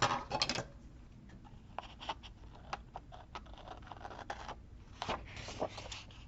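Paper and sticker sheets being handled on a desk: short rustles, scrapes and small taps, busiest at the very start and again around five seconds in.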